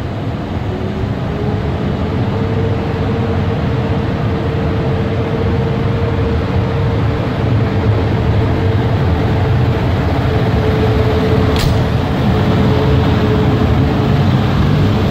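An EP09 electric locomotive hauling an Intercity passenger train moves off along the platform, a steady rumble with a humming tone that rises in pitch over the first couple of seconds and then holds, growing louder as the locomotive draws level and passes. A single short, sharp high click comes about two-thirds of the way through.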